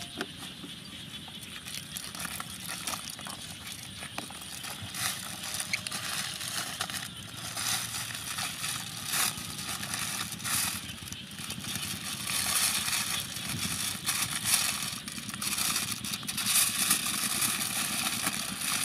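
Aluminium foil crinkling and crumpling as it is folded and pressed by hand around a skewered chicken, in irregular crackly rustles that grow louder in the second half.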